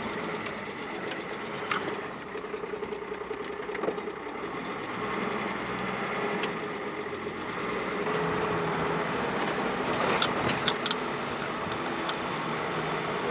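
Car engine running as the car drives slowly, heard from inside the cabin, growing a little louder about eight seconds in. A few sharp clicks and knocks come around ten seconds in.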